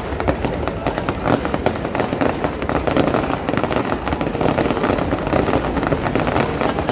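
Fireworks display going off in a rapid, continuous barrage of sharp cracks and bangs, one after another with no pause.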